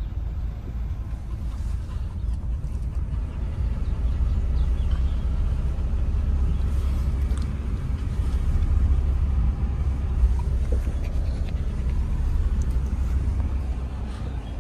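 A car driving, heard from inside the cabin: a steady low rumble of engine and tyres on the road.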